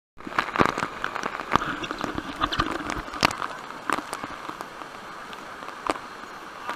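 Waterfall rushing and splashing close to the microphone, with many sharp splashes and drops striking through the steady rush. The sound cuts in abruptly just after the start.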